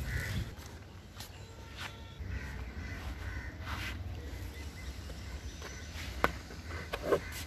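Outdoor background with a steady low rumble and faint bird calls, probably from the crows that are common around such rooftops. There are two sharp taps near the end.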